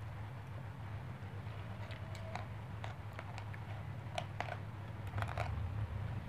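Metal spoon and fork clicking and scraping against a plate in a scatter of light, irregular clicks while eating, over a low steady hum.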